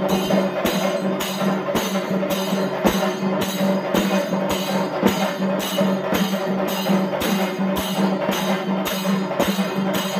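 Temple percussion ensemble playing a steady, dense rhythm of drum strokes, over a held low tone.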